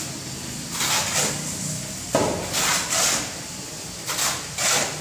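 Two steel shovels scraping across a concrete floor and through a pile of cement and sand mix being turned by hand, with a rough scrape roughly every second.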